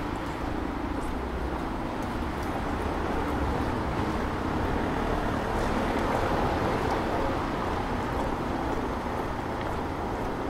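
Street traffic on wet pavement: a steady hiss, louder through the middle, with a faint engine hum underneath.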